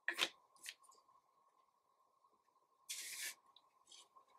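Trading cards being handled and laid on a wooden tabletop: a sharp tap just after the start, a lighter tap soon after, and a brief sliding swish of card on card or on wood about three seconds in.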